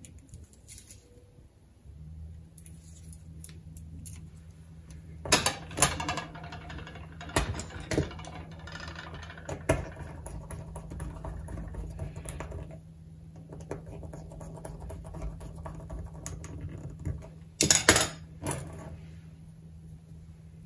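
Handling clatter of thin steel coat-hanger wire and a plastic strip connector on a wooden tabletop: irregular sharp clicks, taps and light rattles as the wires are fitted and a small screwdriver works the connector's screws. The loudest clicks come in clusters about five to ten seconds in and again near the end.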